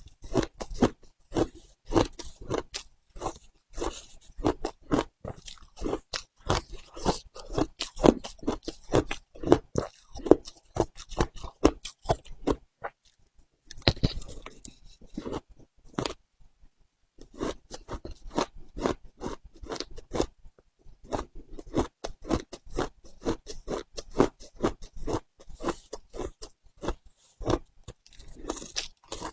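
Ice being bitten and chewed: a dense, irregular run of crisp crunches with two short pauses near the middle.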